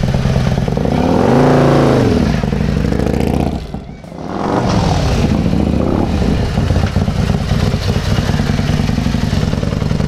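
Harley-Davidson Road Glide's Milwaukee-Eight V-twin engine rising in pitch and falling back once as the bike pulls away, then running steadily at low speed. The level drops briefly about four seconds in.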